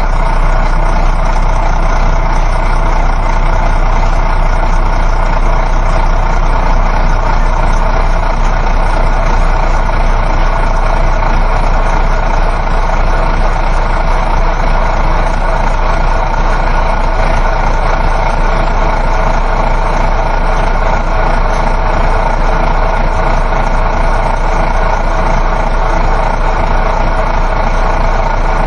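Inside a moving coach bus: a steady engine drone mixed with road and tyre noise.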